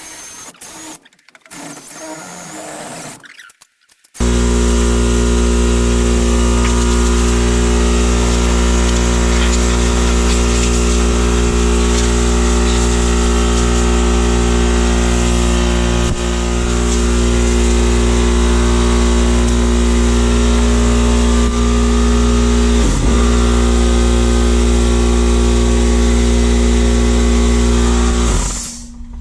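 An engine running loudly at a steady, unchanging speed. It cuts in suddenly about four seconds in and stops near the end, with a couple of faint clicks along the way.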